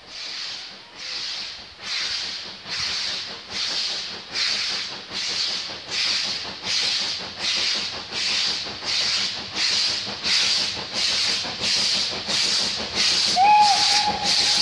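Steam locomotive approaching under power: regular exhaust chuffs, about one and a half a second, growing steadily louder as it comes closer. A short whistle note sounds near the end.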